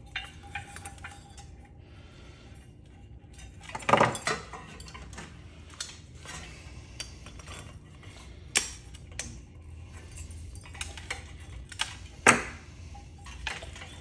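Loose metal scrap parts clinking and clattering as they are handled and set down, with scattered light clicks and two louder clanks, about four seconds in and near the end.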